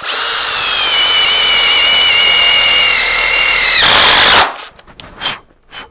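Cordless drill running at a steady high whine for about four seconds, drilling into the brake's metal rail, turning rougher for a moment before it stops suddenly; a few light clicks follow.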